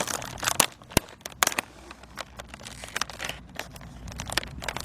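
Plastic cookie package being opened: the wrapper crinkles and crackles in irregular bursts, with a sharp tick about a second in.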